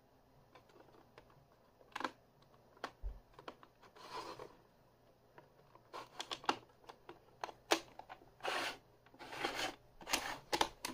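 Plastic VHS cassette shell being handled on a wooden table. Starting about two seconds in there are scattered clicks and knocks, and in the second half these come thicker, with short scraping as the cassette is turned and slid across the wood.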